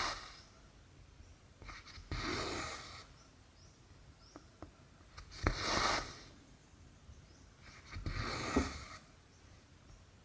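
Cotton embroidery thread being drawn through cross-stitch fabric: a rasping pull about every three seconds, three times, with faint needle ticks between.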